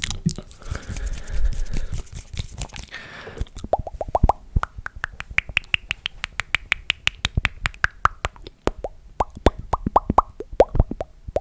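Close-miked ASMR mouth sounds: a hissing, breathy mouth noise for the first few seconds, then a quick run of mouth clicks and pops whose pitch rises and then falls, ending in a few lower pops.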